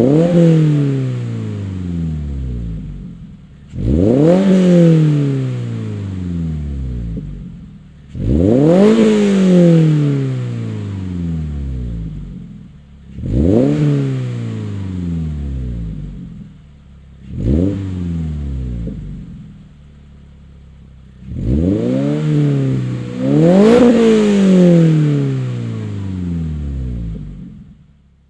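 2022 Subaru BRZ's 2.4-litre flat-four engine revved repeatedly through an ARK Performance GRiP cat-back exhaust with a resonated test pipe: about seven blips of the throttle, each climbing sharply in pitch and dropping back slowly to idle.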